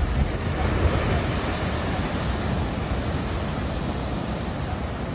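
Heavy ocean surf breaking over a sea-pool breakwater: a dense rushing wash of churning water and spray, loudest at the start and slowly easing off as the wave pours over the wall.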